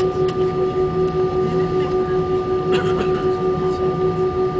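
Airbus A320's jet engines heard from inside the cabin while the plane taxis: a steady hum with one strong held tone and fainter tones above it, its loudness pulsing about three times a second.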